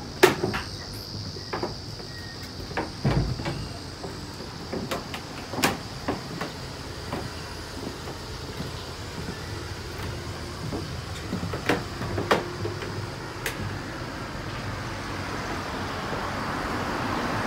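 Scattered knocks and footfalls on a wooden terrace deck, over a steady high insect buzz. Road traffic rises near the end.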